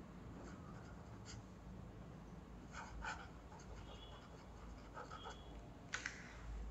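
Faint scratching of a Leonardo Momento Zero Grande ebonite fountain pen's nib on paper during handwriting, in short irregular strokes. A sharp tick near the end is the loudest moment.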